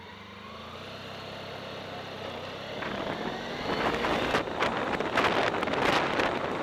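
A motorcycle engine rises in pitch as it pulls away. About three seconds in, loud wind rush and buffeting on the microphone at riding speed take over and grow louder.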